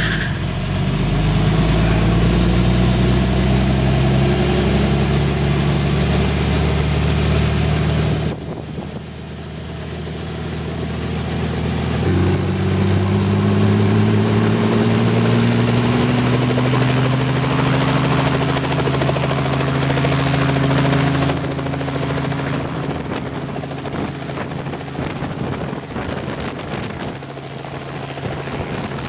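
Robinson R44 piston helicopter running up on the ground: the engine and rotor note drops back about eight seconds in, then climbs steadily in pitch as the rotor comes up to flight speed. It settles into a rougher, lighter sound as the helicopter lifts off into a low hover.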